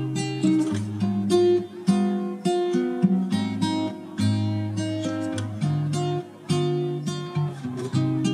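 Background music: an acoustic guitar picking notes and chords at a steady pace, about two a second.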